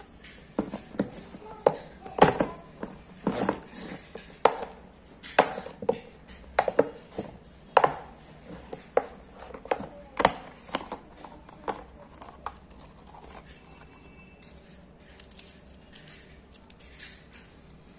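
Irregular sharp knocks and clacks, roughly one a second, from a clear plastic box and its paper slips being handled. They die away after about twelve seconds.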